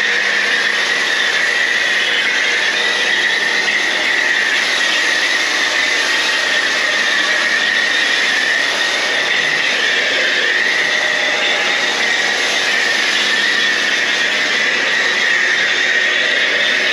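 Kärcher K2 electric pressure washer running and spraying foam through a foam cannon: a loud, steady, high-pitched hiss that wavers slightly.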